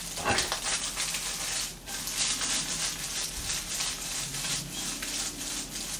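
Scrambled eggs sizzling in a wok, stirred with a wooden spatula and then tossed as the wok is shaken back and forth, with many small scrapes and clicks over the steady sizzle.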